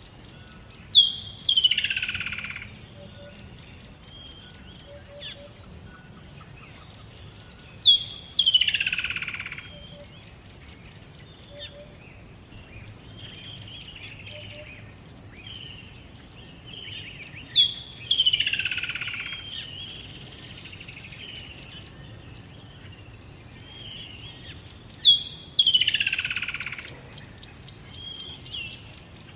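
Songbirds singing. One bird repeats a loud phrase four times, about every eight seconds: a sharp high note, then a long falling sweep. Quieter chirps from other birds fill the gaps, and a fast trill comes near the end.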